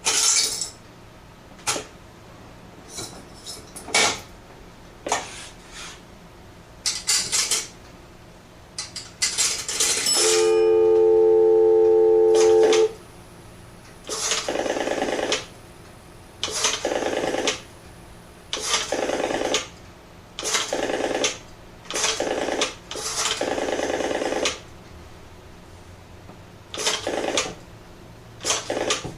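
Antique Western Electric three-slot payphone being worked. Sharp clicks and clatter from the mechanism come first. A steady dial tone sounds for about two and a half seconds, then a run of short whirring bursts of varying length, each about a second long, like the rotary dial spinning back after each digit.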